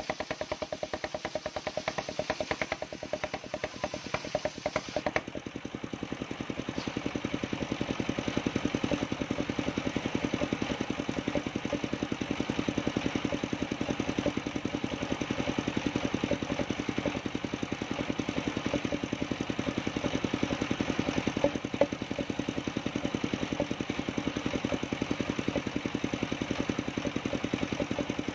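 Engine-driven circular sawmill blade cutting lengthwise through a coconut log; about five seconds in the cut ends, and the blade spins free while the engine keeps running steadily with an even rapid pulse.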